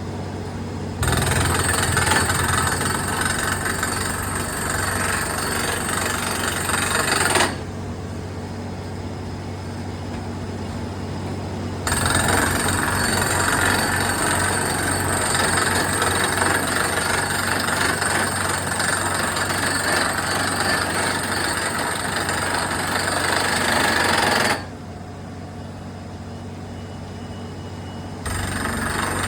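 Borewell drilling rig running: its engine hums steadily throughout, overlaid by two long stretches of much louder, harsh noise from the drilling that begin and end abruptly.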